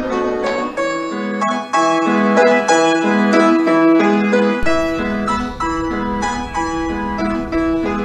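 Background piano music with evenly paced notes.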